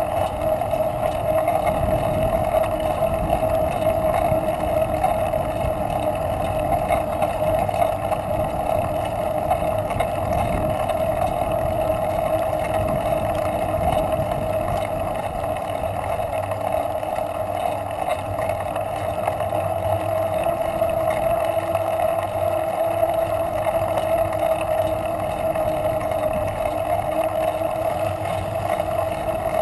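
Steady droning rush of riding noise, wind and tyres on asphalt, picked up by a camera mounted on a moving bicycle.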